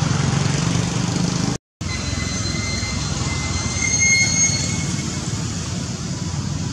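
Steady outdoor background noise with a brief drop-out to silence about a second and a half in. After it, a thin, high whistling tone sounds for about three seconds.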